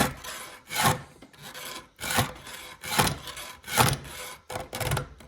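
A chainsaw file is pushed by hand across a chain's cutter teeth, giving a rasping scrape with each stroke, about six strokes at roughly one a second. The file is grabby, biting into the tooth as it is reshaped for more hook.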